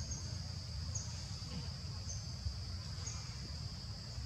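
Steady high-pitched drone of insects in the trees, with a short high chirp repeating about once a second, over a constant low rumble.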